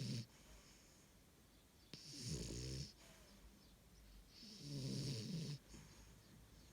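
A sleeping dog snoring: two snores about a second long, some two and a half seconds apart, each a low rattle with a breathy hiss, and the tail of another snore right at the start.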